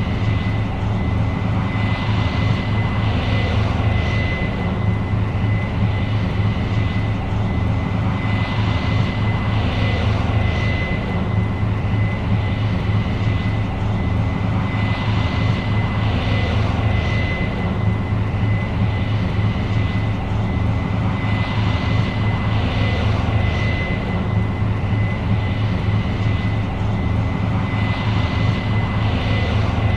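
New Holland CR 7.90 combine running steadily under load while harvesting corn. A deep engine drone carries a constant high whine, and a hiss swells and fades about every six seconds.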